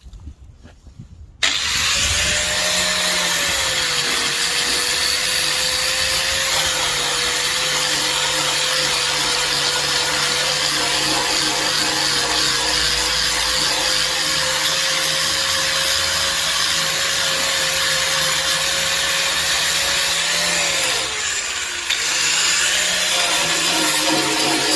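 Angle grinder cutting into rusted steel bodywork, cutting back corroded metal. It starts suddenly about a second and a half in, giving a harsh grinding hiss over a steady motor whine. About twenty seconds in the motor winds down, then starts up again.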